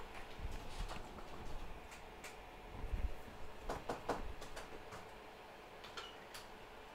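Scattered light clicks and taps of small tools and parts being handled on a workbench, with a few soft low thumps in the first half, over a faint steady hum.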